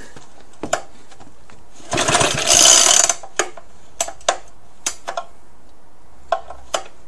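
Recoil pull-starter on an old Suffolk 75cc four-stroke engine pulled once, about two seconds in: a rasping whir of rope and ratchet as the engine turns over without firing. Scattered clicks and knocks of handling come before and after.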